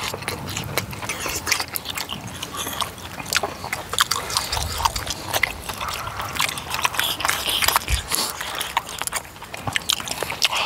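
Close-up eating sounds from people chewing mouthfuls of tteokbokki rice cakes and fried snacks: a steady run of irregular smacking and short clicky mouth sounds.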